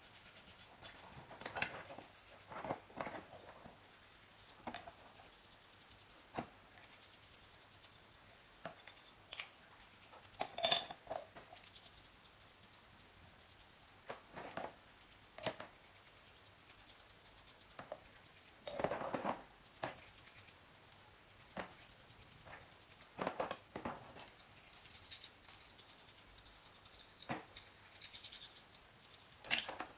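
Bristle paint brush scrubbing small metal model-truck parts in a tub of soapy water: irregular scratchy strokes, with the odd knock or clink of the parts being handled.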